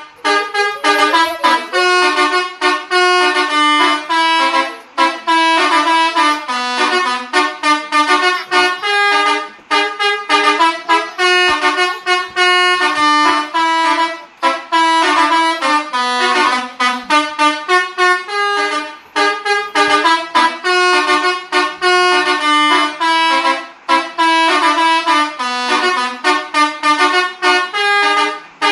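A Basuri V3 telolet horn on a tour bus playing a tune: a quick run of short, loud multi-tone horn notes that changes pitch note by note. It goes in phrases of about five seconds, each ending in a brief break.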